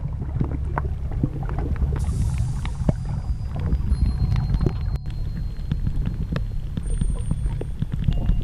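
Underwater ambience picked up by the camera: a steady low rumble of water moving around it, with many scattered short clicks and crackles.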